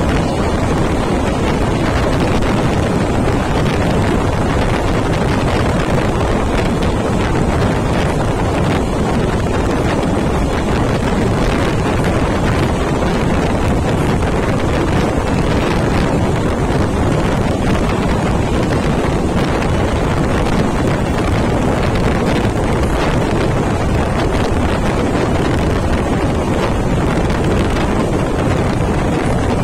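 Heavy wind buffeting a microphone held outside a moving express train, over the steady running rumble of the train at speed on the rails. The level stays even throughout.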